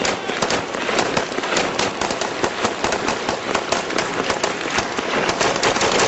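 Gunfire in a firefight: many sharp shots cracking in rapid, irregular succession and overlapping, without letup.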